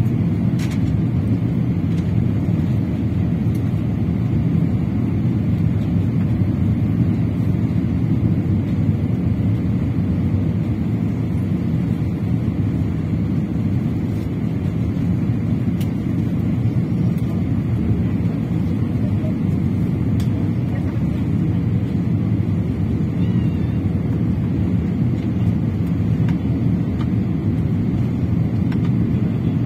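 Steady cabin noise inside an Airbus A320-214 on descent: an even, low rumble of its CFM56 engines and the airflow over the fuselage, heard from a window seat over the wing.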